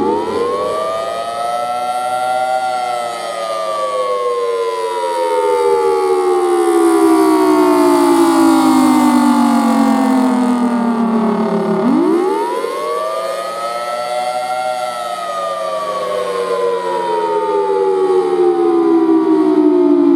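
Federal Signal Thunderbolt 1003 civil defense siren sounding the attack signal, its 5/6-port rotor giving a two-note chord. It winds up quickly to its top pitch in about two and a half seconds, then slowly winds down for about nine seconds. It winds up again about twelve seconds in and is sliding down once more near the end.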